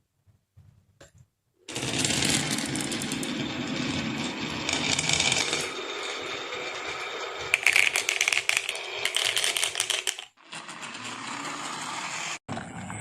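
Marbles rolling and clattering down a wooden marble run: a steady rattling roll starting about two seconds in, with a flurry of sharp clicks and knocks later on. The roll breaks off briefly twice near the end.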